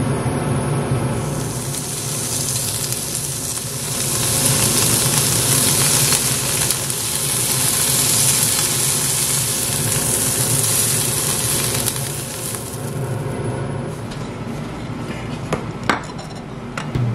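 Slices of beef chuck flap sizzling as they sear in a hot nonstick frying pan. The sizzle swells about a second in and dies away a few seconds before the end. A few light clicks follow near the end.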